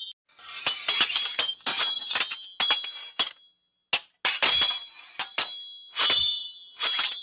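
Sword sound effects: a quick series of sharp metal blade clashes and scrapes, each with a short high ring that fades, grouped in bursts with brief gaps between them.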